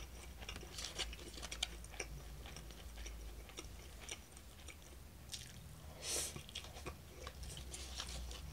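Close-up chewing of a mouthful of lotus root tempura and rice, with faint crisp crunching clicks of the fried batter and lotus root. One short louder hiss about six seconds in.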